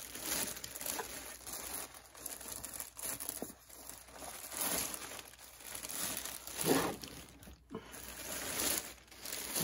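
Thin clear plastic bag crinkling and rustling in irregular bursts as it is pulled and gathered off an RC truck, with a duller bump about seven seconds in.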